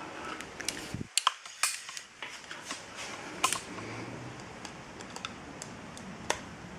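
Irregular small clicks and light metal taps from hand tools and parts as a screw is fitted and tightened into a car door latch and lock actuator assembly, a few louder clicks among many faint ones.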